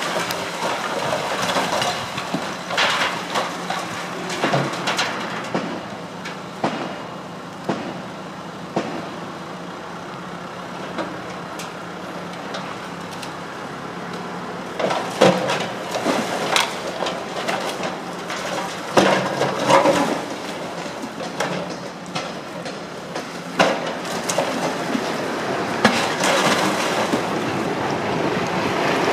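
Excavator demolishing a brick building: bricks, timber and rubble crashing and clattering down in irregular knocks and crashes over the low, steady running of the machine's engine. The crashes thin out for a few seconds in the middle, then come thick again, with several loud strikes in the second half.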